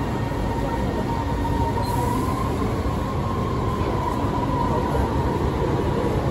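Beijing Subway Line 7 train running, heard from inside the car as it pulls away from the platform: a steady rumble of wheels and motors. Over it runs a faint whine that rises a little about two seconds in.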